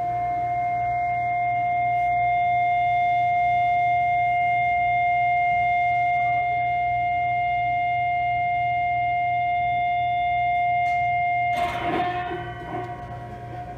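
Live experimental music: a single steady, held drone tone with a stack of fainter overtones. About twelve seconds in, a short noisy crackle breaks in and the drone drops to a quieter, thinner tone.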